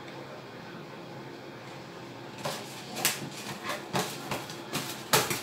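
A spatula scraping and knocking against a butter container and baking dish as butter is scooped out. About halfway in, a string of short knocks begins, roughly one every half second.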